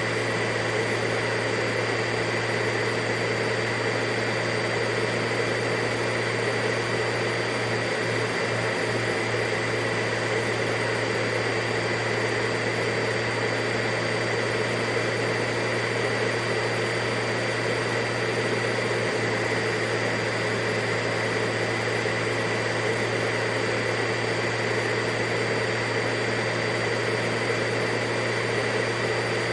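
Vacuum cleaner running steadily at one speed: a constant rushing hum with a high whine held at one pitch.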